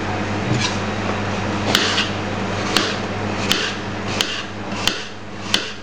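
Kitchen knife cutting apple pieces on a stainless steel worktop: a sharp click of the blade on the steel about every 0.7 seconds, over a steady low hum.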